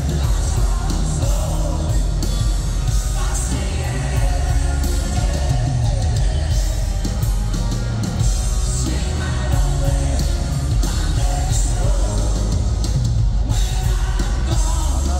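Live rock band playing loudly, with electric guitar and a male lead singer singing into a microphone.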